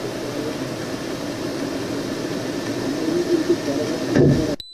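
Steady engine and rushing air noise, with no clear rhythm. It swells briefly a little after four seconds, then cuts out abruptly near the end, leaving a faint short high beep.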